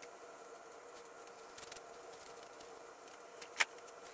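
Faint scratching and dabbing of a small paintbrush working paint onto the vise body, with one sharp click about three and a half seconds in, over a steady hum.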